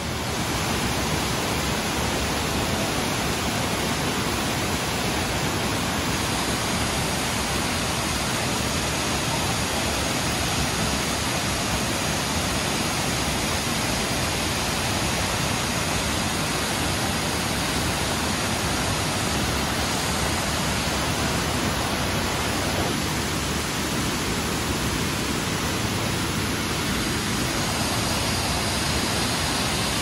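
Steady rushing of a waterfall pouring over a rock ledge and splashing onto the rocks and pool below.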